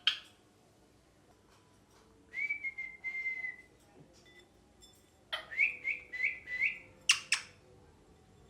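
Pet ringneck parakeet whistling: one long steady whistle, then a few seconds later four quick rising whistles in a row, followed by two short sharp calls.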